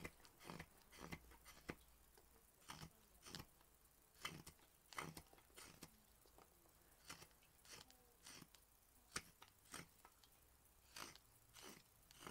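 Hook knife cutting into the bowl of a cherry-wood spoon: about fifteen short, crisp slicing strokes, each one a shaving being scooped out, coming in irregular clusters with brief pauses.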